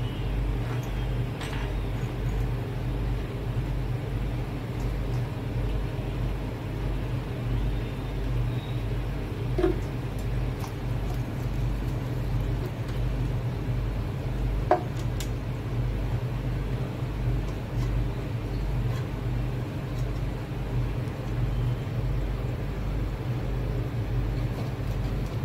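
A steady low hum, with a few light clicks about ten and fifteen seconds in as the small plastic top filter of a molded aquarium is fitted together by hand.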